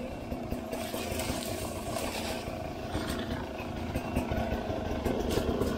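Dirt bike engine running at a fairly even level through the whole stretch, with a steady tone running through its rumble.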